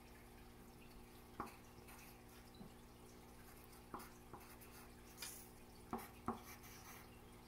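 Faint room tone with a steady low hum, broken by several light, scattered taps and scratches of a pencil writing on paper laid on a wooden table.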